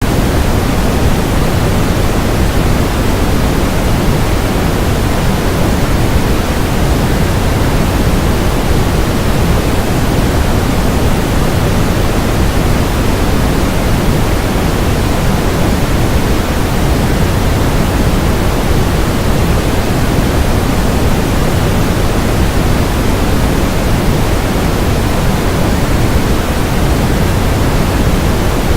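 A loud, steady rushing noise like running water, even and unchanging throughout.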